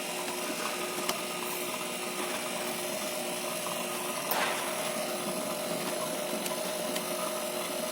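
Electric fan motor running on test with a steady hum, a few faint clicks over it; the shaft bushing, which had stiffened with dirt, has just been cleaned.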